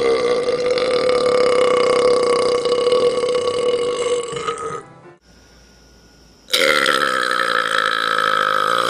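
A man's long, drawn-out belches from swigging malt liquor. The first holds a steady pitch for about five seconds and stops just before halfway. After a short pause, a second starts higher, drops in pitch and lasts about two seconds.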